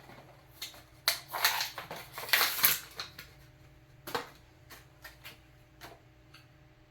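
Handling noise: a few light clicks, then about two seconds of loud rustling and crinkling, then a handful of scattered sharp clicks and taps.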